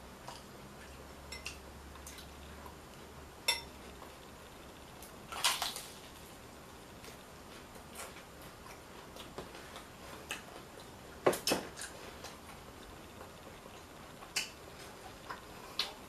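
Occasional clinks and knocks of a utensil against glass bowls and a plate: a handful of separate sharp sounds, the loudest a close pair about eleven seconds in.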